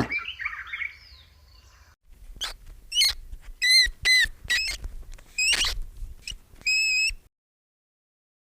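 An animal's short, high-pitched chirping calls, about a dozen in quick, uneven succession, stopping about seven seconds in.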